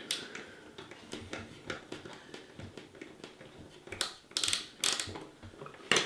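Small metal screws and a small screwdriver clicking and scraping against a graphics card as it is screwed back together. There are many light ticks, a few louder clattering scrapes about four to five seconds in, and a sharp click near the end.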